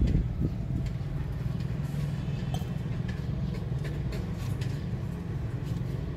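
Steady low vehicle rumble, with a few faint light clicks.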